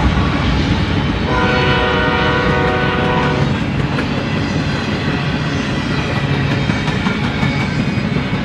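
BNSF freight train passing close by: GE diesel locomotives running, then empty well cars rumbling and clacking over the rails. About a second in, a locomotive horn sounds for roughly two seconds.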